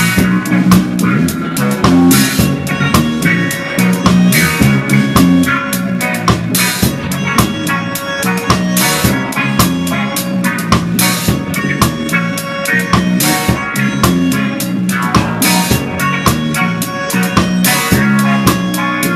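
Live reggae band playing: drum kit with snare, rimshots and cymbals up close, over bass and guitar.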